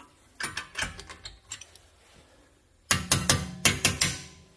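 Metal clinks and clanks of pliers and brake-caliper hardware being handled at a car's rear disc brake. A few light clicks come first, then a quick run of sharp metallic clanks about three seconds in.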